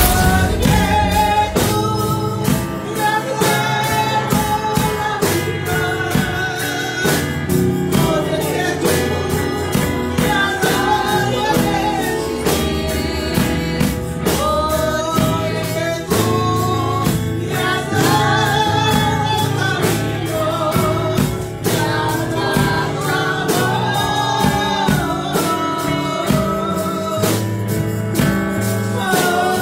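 A gospel praise song: a singer's voice carrying the melody over electric bass and a steady percussion beat.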